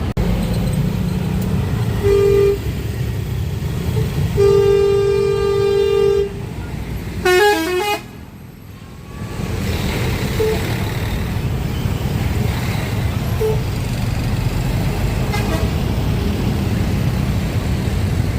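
Indonesian tour bus's Basuri multi-tone air horn playing telolet: a short blast, then a longer held note, then a quick run of changing notes, over steady traffic and engine noise.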